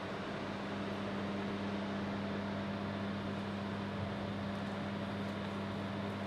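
Steady low hum over a hiss from a large louvred outdoor electrical equipment cabinet, unchanging throughout.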